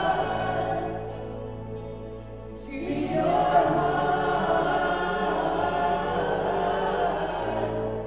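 Live worship band and singers performing a slow worship song, voices holding long notes over the band. The music thins out about a second and a half in and swells back a second later.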